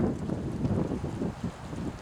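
Storm wind buffeting the microphone: a low rumbling noise that eases off and weakens over the first second.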